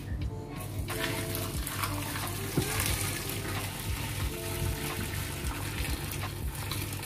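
Water poured from a stainless-steel electric kettle into a steel pot of vegetables: a steady splashing stream that starts about a second in and keeps going.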